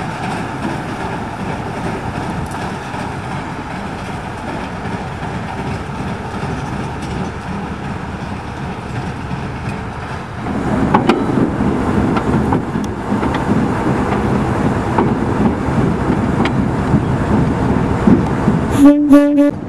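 TU2 narrow-gauge diesel locomotive's engine running steadily as the locomotive moves off along the track. The sound turns louder and rougher about halfway through. A short, loud tonal blast comes near the end.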